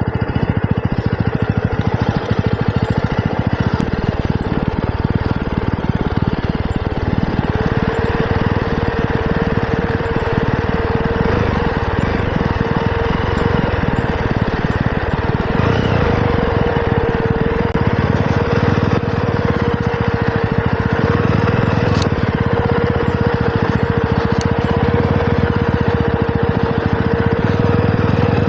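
Jawa 42 motorcycle's single-cylinder engine running steadily with a constant whine as the bike rides down a steep, slippery dirt track.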